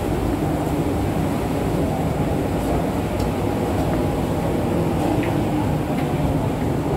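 Steady low rumble of a PELNI passenger ship under way, heard from its open deck: engine drone mixed with rushing wind and sea, with a few faint clicks.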